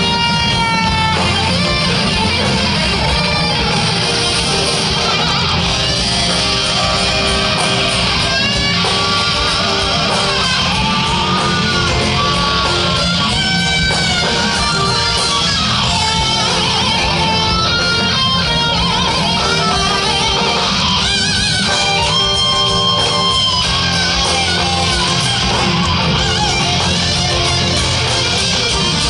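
Live heavy metal band: an electric guitar plays a lead line of bent notes with wide vibrato over bass and drums.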